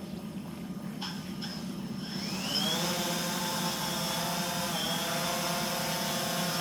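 DJI Phantom 3 4K quadcopter's motors and propellers spinning up on auto takeoff: a quickly rising whine about two seconds in that settles into a steady propeller buzz as it lifts off and hovers. A couple of short ticks come about a second in.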